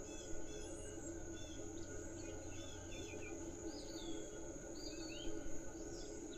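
Outdoor ambience: a steady high-pitched insect drone, with scattered short bird chirps and whistles over a faint low background rumble.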